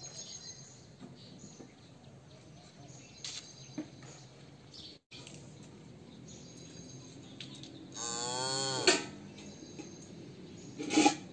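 Cow calf mooing once, a single call of about a second, about eight seconds in, with the pitch falling as it goes: a young calf calling while it waits to be fed milk. A short, loud sound follows near the end.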